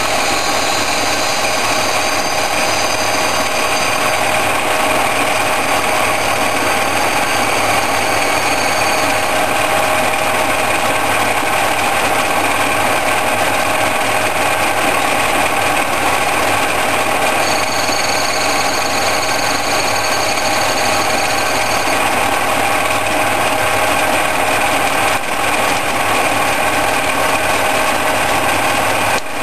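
A circa-1945 Ward 1A capstan lathe running steadily, its drive giving a constant mechanical whine while it turns screw blanks. A higher-pitched whine joins it for the first several seconds and again past the middle.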